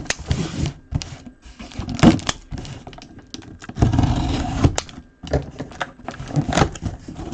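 Hands opening a mini-helmet box and its packaging: irregular clicks, scrapes and crinkling, with a longer crackly stretch about four seconds in.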